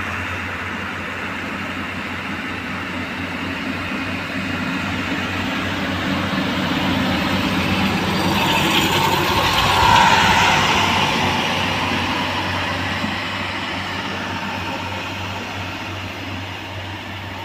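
A railway track-relaying machine carrying concrete sleepers, its diesel engine running as it rolls along the rails. It grows louder as it passes close, loudest about ten seconds in, then fades away.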